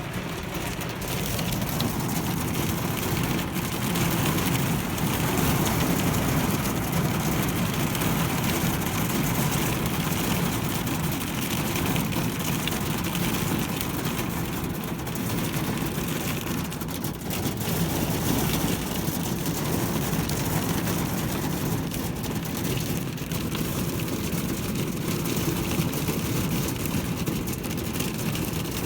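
Hail and heavy rain pelting down in a dense, steady clatter of countless small impacts.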